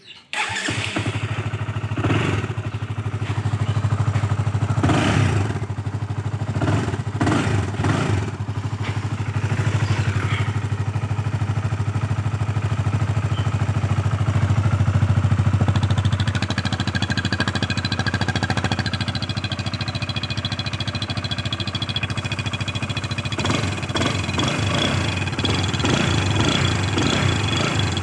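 Exhaust of a Honda CBR150's single-cylinder four-stroke engine running steadily. It gets short throttle blips several times in the first ten seconds and again near the end.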